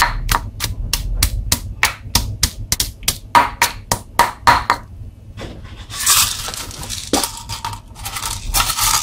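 Stone pestle pounding coriander root in a stone mortar, about four sharp strikes a second, stopping about five seconds in. A few seconds of scraping and rustling follow near the end.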